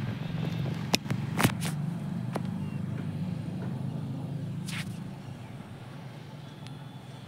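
A low steady rumble with several sharp knocks and clicks about a second in and again near five seconds. The rumble eases a little after about five seconds.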